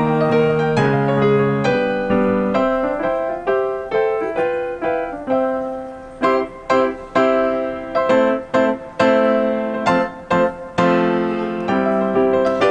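Background music: an electric piano or keyboard playing a light melody of short, plucked-sounding notes, with chords early on.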